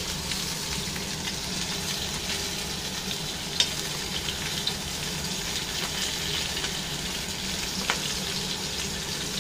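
Whole fish frying in shallow oil in a stainless steel wok, a steady sizzle. A metal spatula clicks sharply against the wok about three times.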